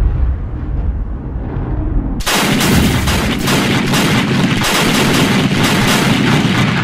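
Battle sound effect: a deep rumbling blast, then from about two seconds in a dense, rapid volley of gunfire and cannon shots.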